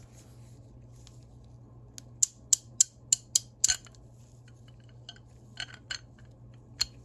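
Sharp metallic clicks from a Proto spud ratchet's open head as the drive gear is turned by hand and its teeth snap past the spring-loaded pawls. A quick run of about six clicks comes a couple of seconds in, then three more spaced out near the end.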